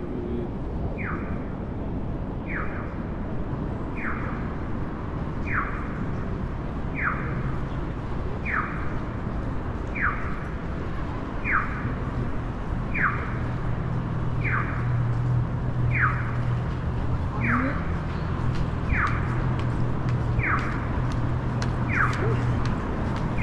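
An electronic chirp repeats about every one and a half seconds over steady street traffic noise. Each chirp is a quick downward sweep in pitch. A low steady hum joins about halfway through.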